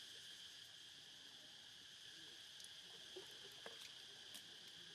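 Faint steady high-pitched drone of insects, with a few faint clicks in the second half.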